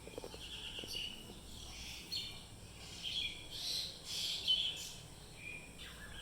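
Faint chirping of small birds: a scatter of short, high calls and trills.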